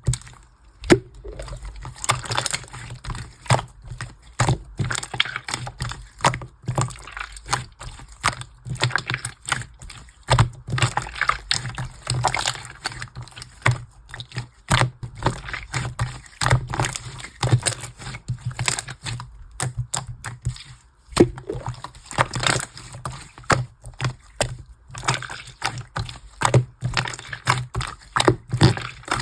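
Clear slime worked by hand with small round beads mixed in: irregular wet clicks and crackling pops as it is squeezed, folded and pressed.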